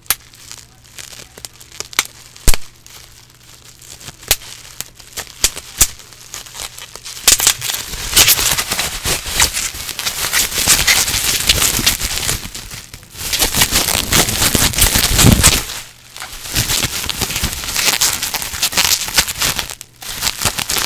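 Bubble wrap being popped by hand close to a microphone: separate sharp pops for the first several seconds, then dense crackling and crinkling of plastic as the sheet is bunched in the hands and many bubbles burst in quick runs, with a few short pauses.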